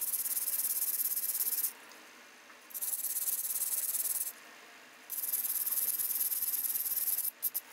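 Hand-held wire brush scrubbing a small steel plate freshly electro-etched in salt water, cleaning the residue off the etched surface. The brushing comes in three bouts of fast, scratchy strokes with short pauses between, followed by a few light clicks near the end.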